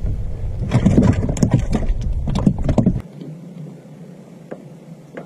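Knocks and bumps of someone shifting about in a small fishing boat, over a low rumble. About three seconds in the rumble cuts off and it goes quieter.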